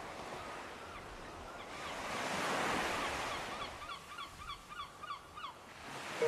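Surf washing on a beach, swelling a couple of seconds in, with a run of short repeated bird calls, about three a second, that stops near the end.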